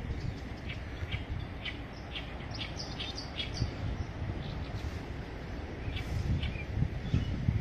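Wetland birds chirping: many short, high calls, a couple a second, over a low rumble of wind on the microphone that grows a little louder near the end.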